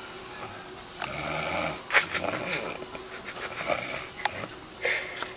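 A sleeping woman snoring: a heavy, noisy breath about a second in, followed by wet clicking and popping mouth noises, with a sharp pop at about two seconds and another breath near the end.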